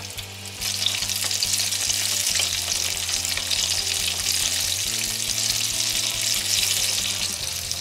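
Miniature breaded chicken nuggets deep-frying in peanut oil in a small saucepan: a steady crackling sizzle of bubbling oil that strengthens about half a second in. A low steady hum sits underneath.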